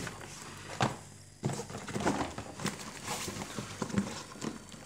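Irregular small knocks, clicks and rustles of things being handled and moved during a search, with a sharper click a little under a second in.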